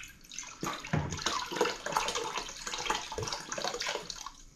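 Iodine sanitizer solution sloshing in a plastic bucket and pouring out of a brown glass beer bottle as it is lifted from the bucket, with a few light knocks. It stops shortly before the end.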